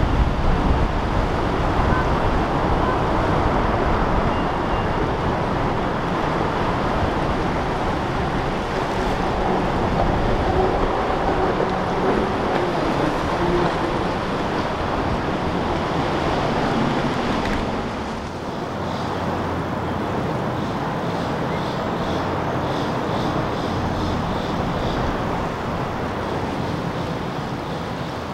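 Sportfishing boat's engines running as it passes through the inlet, mixed with wind and breaking surf. About two-thirds of the way through the sound shifts and gets a little quieter.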